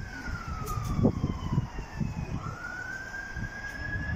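Faint emergency vehicle siren wailing, its pitch slowly rising and falling about once every four seconds, over a low rumble.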